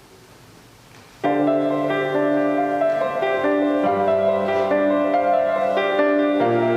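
Keyboard instrument music starting suddenly about a second in, playing slow held chords.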